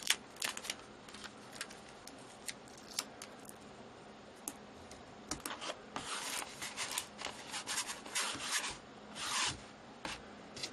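Adhesive tape being handled and pressed onto a painted canvas: scattered crackles and clicks as the strip is positioned, then denser rubbing and crinkling from about six seconds in as a hand smooths the tape down.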